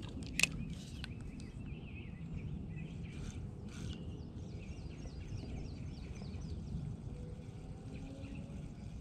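Small birds singing: warbling phrases, then a run of about ten short, high, falling notes, over a steady low outdoor rumble. A single sharp click sounds about half a second in.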